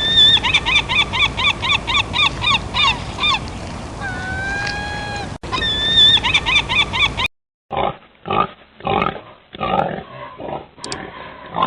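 Animal calls from two recordings. First comes a rapid run of repeated high chirping notes, about four a second, broken by one long, steady whistle-like call and then more chirps. After a sudden cut come a series of short, rough grunts.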